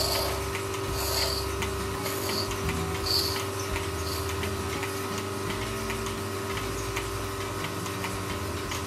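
Milk squirting into a small metal cup as a cow's teat is squeezed by hand, a short hiss about once a second over the first four seconds. Behind it a milking machine runs with a steady hum and fast, even ticking.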